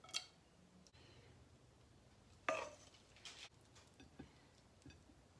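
A few light clinks and knocks of a spoon against a plate or bowl while serving curry, the loudest about two and a half seconds in, otherwise nearly quiet.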